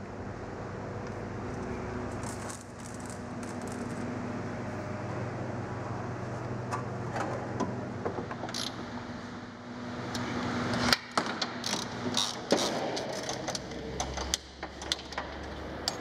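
Hands working on a car's engine bay: scattered clicks, clinks and knocks of parts and tools being handled, coming thicker and louder in the second half, over a steady low hum.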